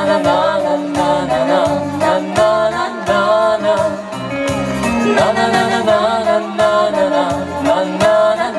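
Male and female voices singing a Ukrainian pop song in duet over a backing track with a steady bass beat.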